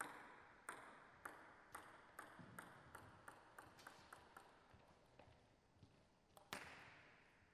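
Table tennis ball bouncing on a hard surface, about a dozen clicks coming quicker and fainter as it settles. Near the end comes one single, louder click.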